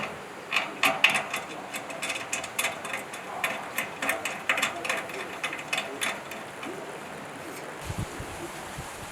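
Quick, irregular mechanical clicking, several clicks a second, like a ratchet, that stops about six and a half seconds in; a few low thumps follow near the end.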